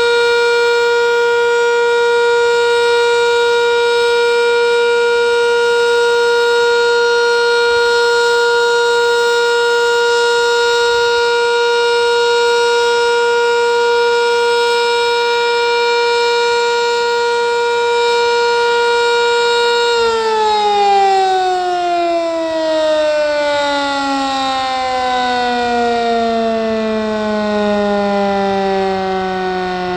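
Sentry 10V outdoor warning siren sounding a steady alert tone, then, about two-thirds of the way through, it shuts off and winds down, its pitch falling slowly. This is the end of its three-minute alert cycle.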